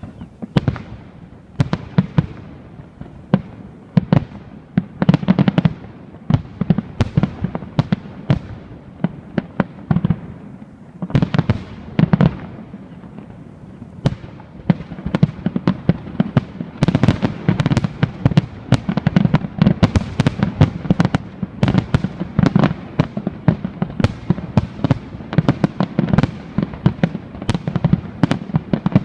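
A fireworks display going off in a long series of sharp bangs, several a second, which come thicker and faster from about halfway through.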